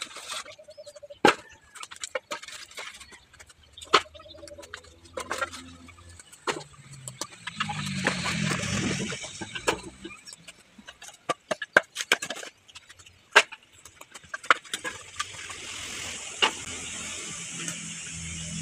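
Split firewood pieces knocking and clattering against each other as they are picked up off the ground and stacked by hand: sharp, irregular wooden knocks. A steady hiss of rain builds in the last few seconds.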